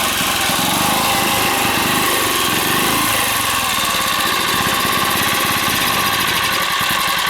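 Small generator (genset) engine running on wood gas from a gasifier, coughing now and then as its fuel gas falters. Its firing starts to slow near the end, as the engine begins to die.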